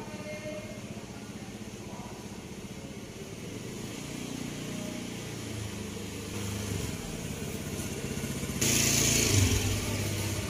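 Motorcycle engine running nearby, growing louder through the second half, with a short loud burst of hiss about nine seconds in.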